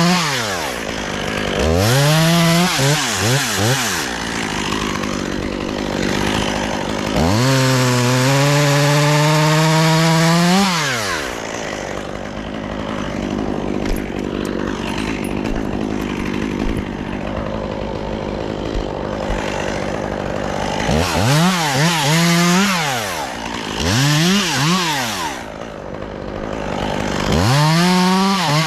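Chainsaw engine revving up and down several times, held high for about three seconds near the middle, with a lower steady stretch between.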